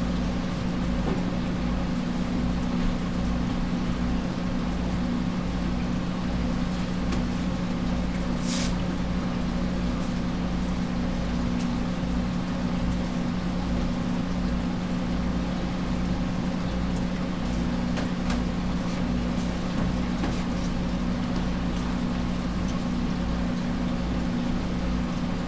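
Steady low machine hum of room equipment, holding two even tones over a low rumble, with one brief hissing rustle about eight seconds in.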